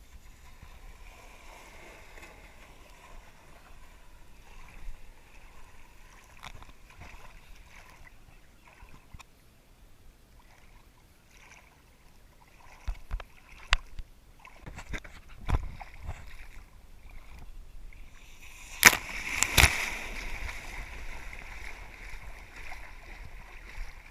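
Shallow stream water lapping and sloshing around a camera sitting at water level, with mountain bikes splashing through the ford. Scattered sharp knocks and splashes come in the second half, the loudest a pair of hits about three-quarters of the way through, followed by a louder rush of splashing.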